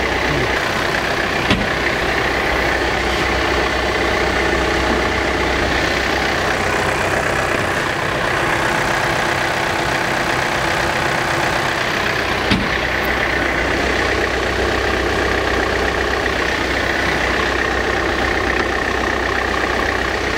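John Deere 4066R compact tractor's diesel engine running steadily at idle while the hydraulic lift cylinder is lowered, with two short sharp clicks, about a second and a half in and about twelve seconds in.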